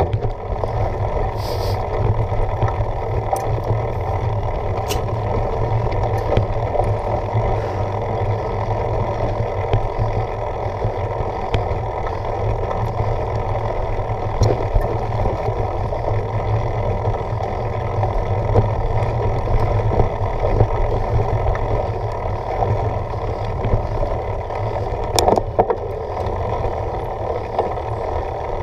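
Mountain bike rolling over a dirt forest trail: a steady rumble of tyres and wind on the microphone, with a few sharp clicks and rattles from the bike.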